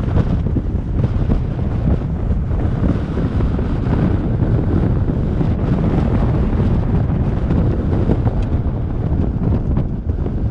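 Wind buffeting the microphone of a Jeep driving on a gravel dirt track, over a steady low rumble of the vehicle and its tyres on the rough surface, with a few sharp ticks.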